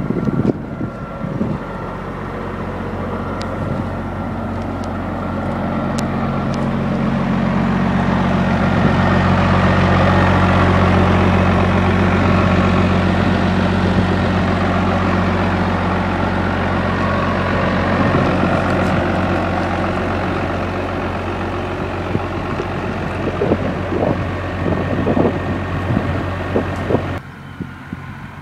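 Tractor diesel engine running steadily close by. It grows louder toward the middle and eases off again, then drops away suddenly near the end.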